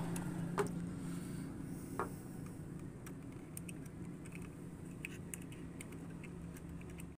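Light clicks and taps from handling a plastic solar-panel junction box and the diode strips inside it: two sharper taps in the first two seconds, then a scatter of small ticks.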